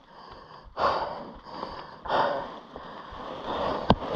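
A person breathing hard after going over a mountain bike's handlebars, with two heavy exhales about a second apart. A sharp click comes near the end.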